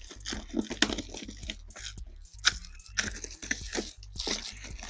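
Scissors cutting and tearing open a cardboard shipping box and its packing tape, with crinkling of the foil lining inside: a string of irregular crunches and short rips.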